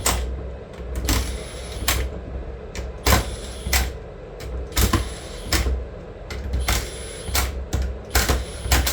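Impact wrench on its lowest setting snugging down the bolts of a BMW differential during final assembly, working in a cross pattern. It gives about ten short rattling bursts, one every second or less, each with a low rumble.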